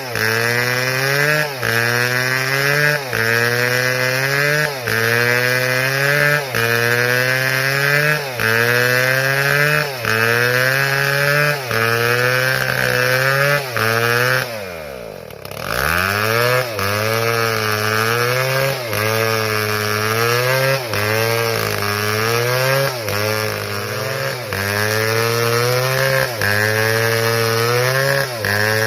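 Stihl two-stroke chainsaw running at full throttle in a cut, its pitch sagging under load and picking up again about every second and a half. About halfway through, the revs fall almost to idle, then climb back up.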